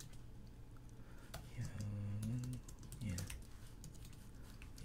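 Typing on a computer keyboard: scattered key clicks as code is entered. A low, wordless voice sounds briefly about two seconds in and again around three seconds.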